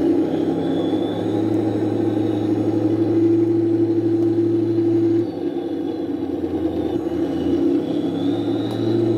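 Simulated tank engine idling from the sound unit of an Amewi 1/16 RC T-34/85, a steady rumble through its small speaker that dips about five seconds in and swells again near the end.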